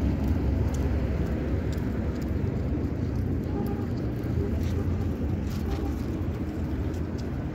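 Street traffic noise from passing cars and auto-rickshaws: a steady low rumble with a few faint clicks.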